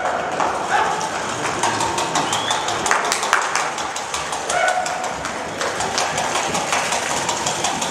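Hackney pony trotting in hand on an arena floor: hoofbeats and rapid clicking, with short held calls from the handlers urging it on.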